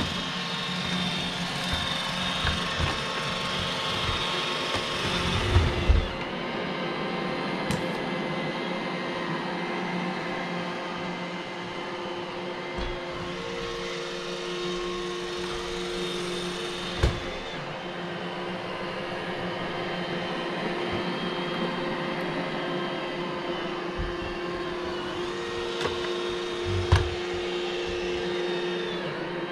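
iRobot Roomba j7 robot vacuum running: a steady whir from its suction fan and brush rolls, with a few sharp knocks along the way.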